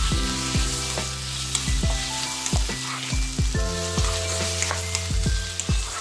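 Chopped onion, carrot and capsicum sizzling in oil in a nonstick wok as a spatula stirs through them, with small ticks and scrapes. Background music with a steady low beat plays under it.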